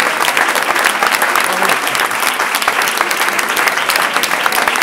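Crowd applauding: many hands clapping together in a dense, steady patter.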